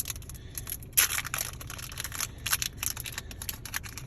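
Foil Pokémon booster pack wrapper crinkling and crackling in the hands as someone tries to tear it open, with a sharp, loud crackle about a second in.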